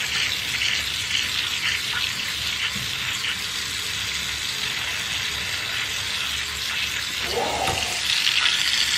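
Tap water from a pull-down kitchen faucet running steadily and splashing into a stainless steel sink and its disposal drain.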